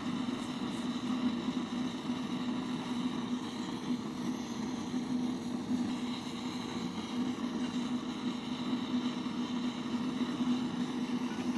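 Homemade propane gas forge's burner running steadily: a continuous rushing flame noise with a low, even hum beneath it.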